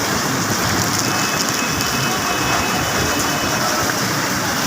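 Heavy rain pouring down steadily: a dense, even hiss with no letup.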